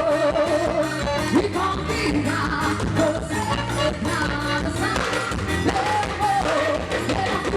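Quadrilha junina dance music: a singer with a wavering vibrato over a full band and a steady beat.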